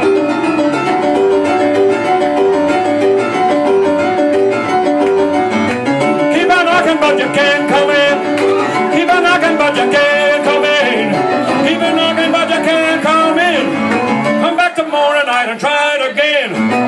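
Rock and roll piano played on a stage keyboard, a steady repeated chord pattern, with a man singing along from about six seconds in, holding notes with vibrato.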